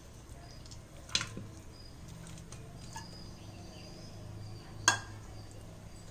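Two sharp clinks of a kitchen utensil against a dish, about a second in and again near five seconds, over a faint low hum.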